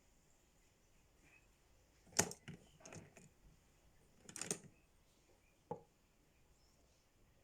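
A few sharp clacks and knocks of hard objects being handled, in short clusters about two, three and four and a half seconds in, with a single click near six seconds.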